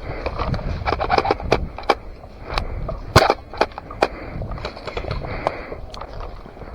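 A string of irregular sharp clicks and knocks, the loudest a little past three seconds in, over a low rustling rumble.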